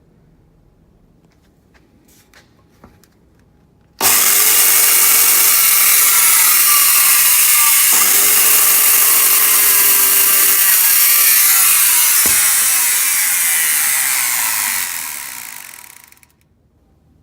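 Makita 5704R electric circular saw switched on, running at full speed for about ten seconds, then switched off and winding down to a stop. A few light handling clicks come before it starts.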